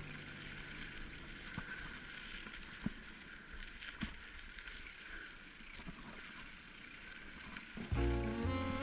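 Mountain bike rolling over a dirt singletrack: a steady hiss of tyre and riding noise, with a few scattered clicks and knocks from the bike on the bumps. Music comes back in near the end.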